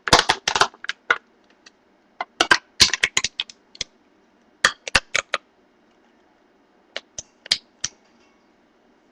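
An aluminium soda can being crushed by hand, its thin walls crinkling and popping in about four bursts of sharp crackles with short pauses between them.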